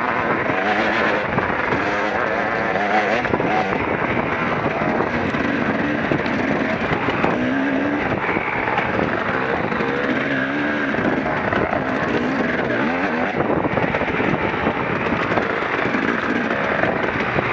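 KTM EXC enduro motorcycle engine revving up and down as the bike is ridden along a dirt trail, heard from on board over a steady rush of noise.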